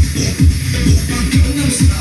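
Electronic dance music with a steady four-on-the-floor beat: a deep kick drum thumps about twice a second, with hi-hats and synth above.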